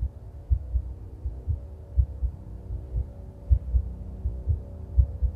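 Heartbeat sound effect: repeated low thumps, often in close pairs, over a steady low drone.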